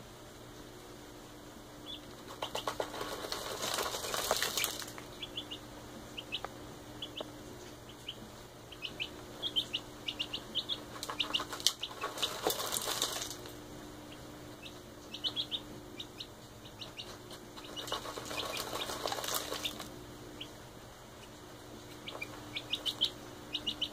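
A young chick dust-bathing in a plastic tub of grain feed: three bouts of wing-flapping and rustling through the feed, each about two seconds long, with runs of short high-pitched sounds in between.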